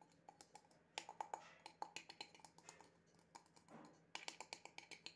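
Light clicks and taps of a small plastic jar being handled, scattered at first, then a quicker run of clicks about four seconds in.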